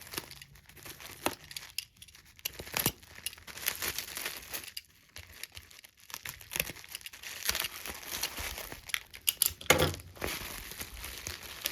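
Plastic bubble wrap crinkling and rustling as it is unwrapped by hand from glass pendants, in irregular crackles.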